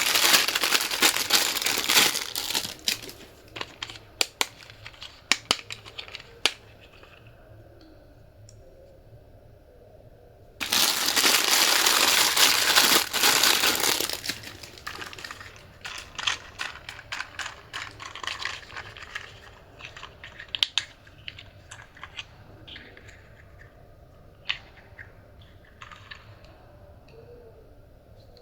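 Crinkling, crackling handling noise in two long bursts, about three seconds each, with scattered clicks and taps in between.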